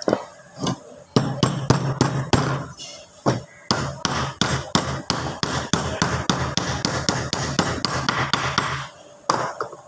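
Rapid hammer taps, about four a second, driving a new ball bearing onto the crankshaft of a Mitsubishi TB33 brush-cutter engine.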